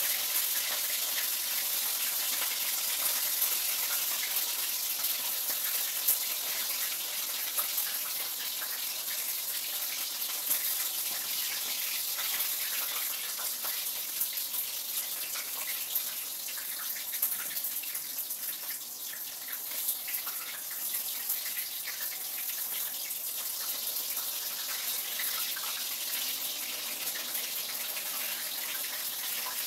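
Oil sizzling in a frying pan as food fries: a steady hiss with small crackles.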